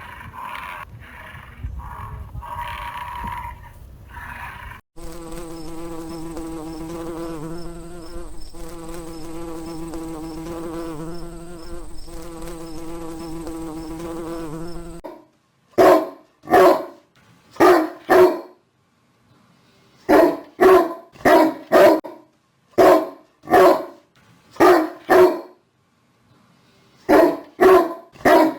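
A dog barking loudly and repeatedly, in quick groups of two or three barks with short pauses between, through the second half. Before that comes a steady buzzing hum lasting about ten seconds.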